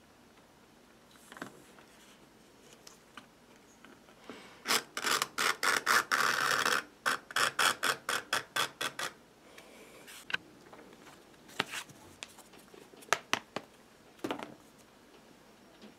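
Knife blade drawn through leather along a steel ruler in a run of short scraping strokes, about four a second, with one longer continuous stroke in the middle. Afterwards a few separate clicks and taps as the leather and tools are handled.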